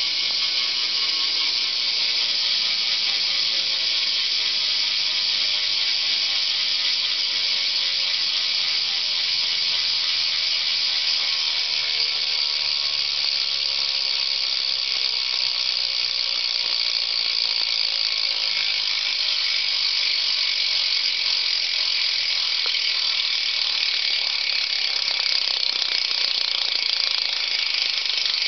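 Odyssey V3 cassette BMX hub with a 9-tooth right-hand-drive driver, freewheeling as the rear wheel spins. Its pawls click on the ratchet so fast that they make a pretty loud, continuous buzz, slowly falling in pitch as the wheel slows.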